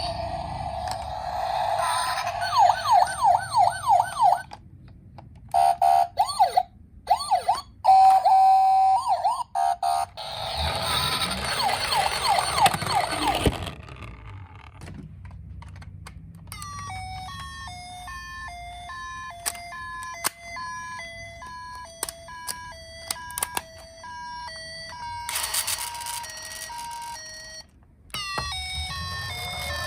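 Electronic toy sirens from miniature ambulance and police cars, several sounding in turn: fast rising-and-falling yelps, a short steady two-note tone, and later a stepped electronic tune. A burst of rushing noise comes near the end.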